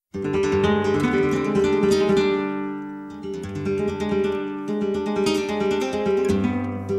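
Background music of strummed acoustic guitar, starting abruptly from silence; one chord rings out and fades about two and a half seconds in before the strumming picks up again.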